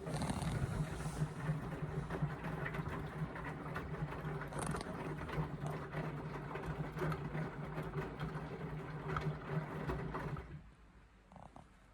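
Indesit washing machine on a full-load express wash, its drum turning with the motor humming steadily and the laundry clattering inside. The motor and tumbling stop near the end as the drum pauses.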